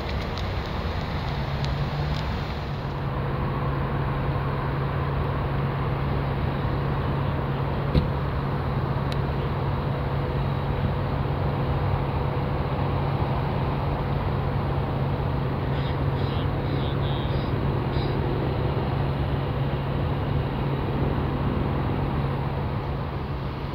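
Steady, even engine rumble with a constant low hum, and one sharp click about eight seconds in.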